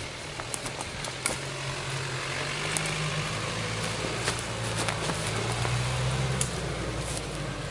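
Jeep Wrangler Rubicon JL's 2.2-litre four-cylinder turbodiesel engine running steadily at low revs as the Jeep crawls over rough woodland ground, with a few sharp clicks over the drone.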